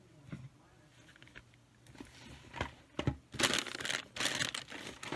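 Plastic snack bags crinkling as they are picked up and handled. A few light knocks and rustles come first, and the crinkling is loudest in the last second and a half.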